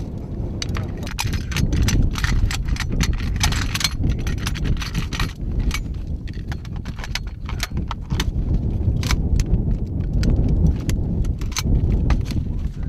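Metal parts of a belt-fed machine gun clicking and clinking as it is handled, stripped and put back together by hand, over a steady low rumble.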